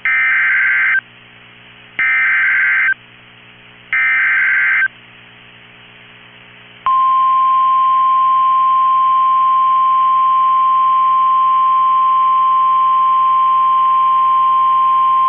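Emergency Alert System SAME header played three times over NOAA Weather Radio: three one-second bursts of warbling digital data tones about a second apart. About seven seconds in, the steady 1050 Hz Weather Radio warning alarm tone starts and holds, signalling a severe thunderstorm warning.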